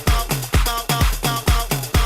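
Electronic dance music from a DJ set: a steady kick drum about two beats a second under a short repeating synth figure.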